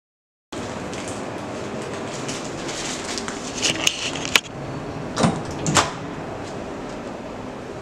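A steady room hum with a handful of knocks and clicks as someone moves through an empty apartment's entrance: a cluster between three and a half and four and a half seconds in, then two more around five and six seconds. The sound starts abruptly about half a second in.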